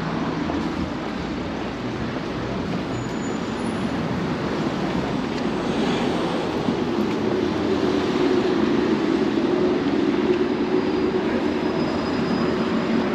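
Street traffic noise: a motor vehicle's engine running close by, a steady rumble that grows louder from about six seconds in and eases a little near the end.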